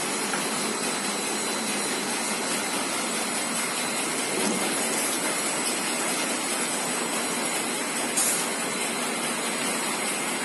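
Envelope folder gluer running steadily: an even mechanical hiss with a thin steady whine over it.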